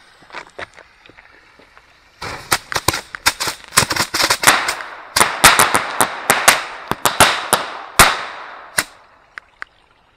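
A mortar tube of bottle rockets set off by a wrapped quick fuse: a faint fuse hiss for about two seconds, then a volley of rockets launching, dozens of sharp pops over a continuous rushing hiss for about seven seconds, thinning out near the end. Every rocket fires, a complete multiple launch.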